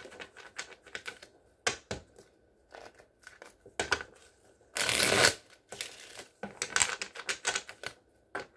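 Tarot cards being shuffled by hand: a run of quick irregular taps and flicks, with a half-second rush of cards about five seconds in.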